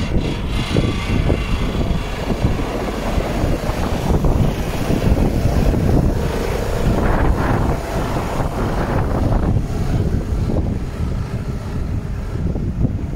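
Wind buffeting the microphone over the steady running of a Mercedes-Benz Arocs 2648 tipper truck's straight-six diesel engine, with gusts swelling and easing.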